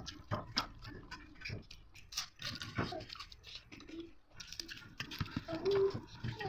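Close-up chewing and crunching of fried bird, with irregular wet mouth clicks and smacks. A short whine sounds a little before the end.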